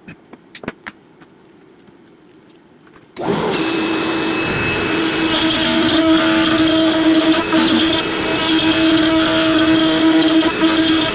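A few light clicks, then about three seconds in a CNC router's spindle comes in abruptly and runs steadily with a high whine, carving into maple.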